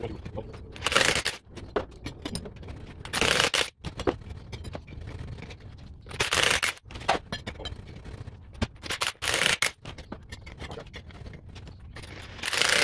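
Cordless impact wrench hammering in five short bursts of about half a second, roughly three seconds apart, driving a pipe expander to stretch the end of an exhaust pipe. Quieter handling noise of the tool and pipe comes between the bursts.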